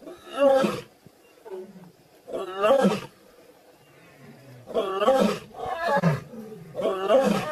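Lionesses growling and snarling up at a leopard in about five harsh, rasping bursts, each lasting under a second, with short pauses between them.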